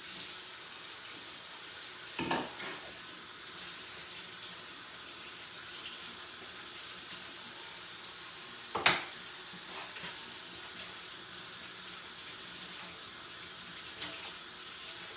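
Tap water running steadily into a stainless-steel kitchen sink while a bowl is washed out, with a couple of knocks of things being handled, the sharpest and loudest about nine seconds in.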